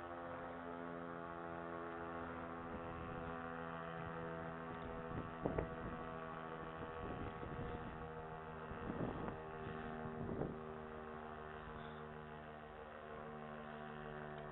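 Federal Signal STH-10 outdoor warning siren sounding a steady, many-pitched tone during a test, its lower tones shifting a couple of times. Three brief louder bumps come in the middle.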